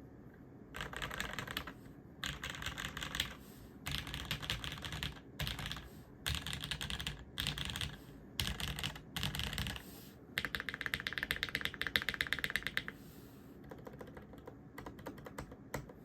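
Typing on a mechanical keyboard: a Jane V2 CE aluminium top-mount TKL with lubed Cherry MX HG Black linear switches and GMK keycaps. It is typed in quick bursts of keystrokes, then a very fast, even run of strokes about two-thirds of the way through, then lighter, scattered presses near the end.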